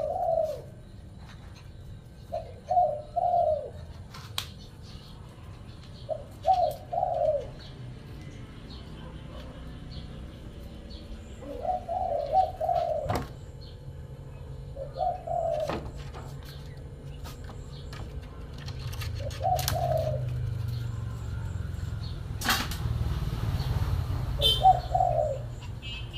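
Short animal calls repeated every few seconds, seven in all, each one or two brief rising-and-falling notes. Scattered clicks, and a sharp click about three-quarters of the way through followed by a few seconds of rushing noise.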